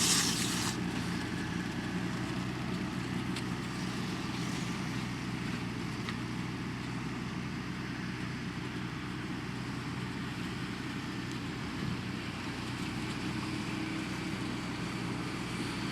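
Fendt 724 tractor's diesel engine running steadily at a constant speed. A loud rushing hiss stops sharply within the first second.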